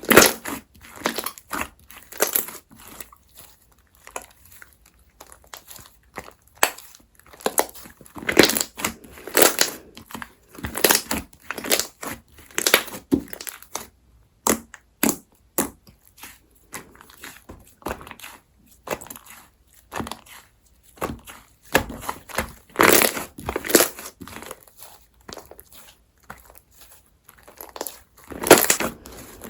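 Hands squishing, pressing and stretching a soft slime, giving irregular crackling squishes and pops.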